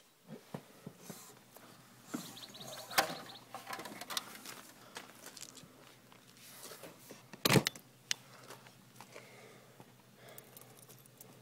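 Clicks and knocks of an RV entry door and its latch being handled, with one loud bang about seven and a half seconds in as the door is shut. Light clicks follow as a key is put to the door's paddle-latch lock.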